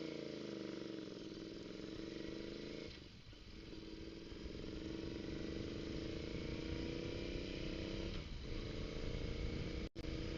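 Royal Enfield Interceptor 650's 648 cc parallel-twin engine under way. It slows off the throttle, then pulls up through the gears, the note breaking for a shift about three seconds in and again about eight seconds in and rising steadily after each.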